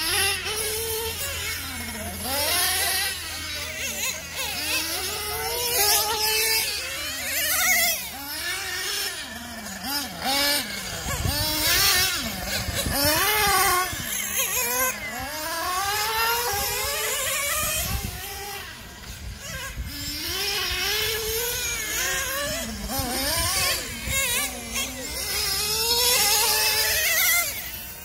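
Several nitro-powered RC cars running on track. Their high engine notes rise and fall over and over, overlapping, as each car accelerates down the straights and backs off into the corners.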